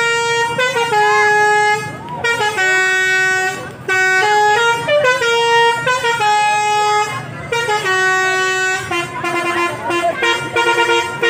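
Bus basuri musical air horn playing a melody of held notes that step up and down in pitch, with quicker short notes near the end.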